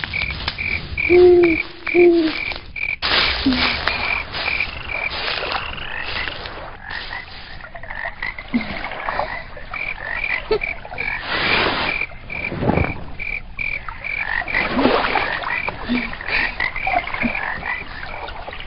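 Frogs croaking in a night chorus: a high chirp repeating about twice a second, with two low croaks near the start. A hiss of noise swells up a few times.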